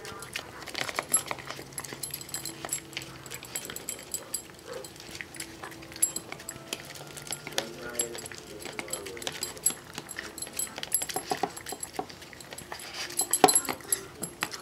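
A puppy eating wet canned dog food mixed with kibble from a plastic bowl: quick, irregular licking, smacking and chewing clicks, with a louder flurry about 13 seconds in.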